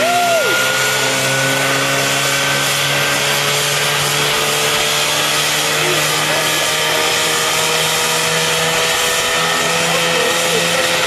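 Engine of a homemade single-seat helicopter running steadily at high speed with its rotor turning, the engine note creeping slowly higher.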